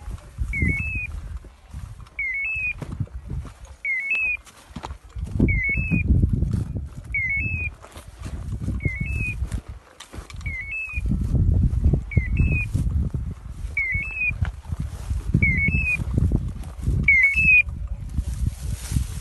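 Hunting dog's beeper collar in point mode, sounding a short two-note electronic chirp about every one and a half seconds: the sign that the English setter is standing still on point. The chirps stop near the end. Under them, loud low rumbling and rustling from footsteps and handling in dry grass.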